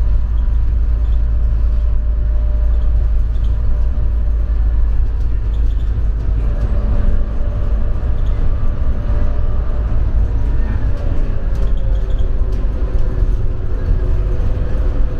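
Airport people-mover train running along its guideway: a steady low rumble with a faint motor whine whose pitch slides a little lower about eleven seconds in.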